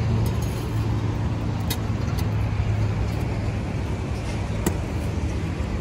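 A long-handled spade jabbed down into hard, dry soil, giving a few sharp strikes, over a steady low hum. The ground is hard enough to make the digging slow going.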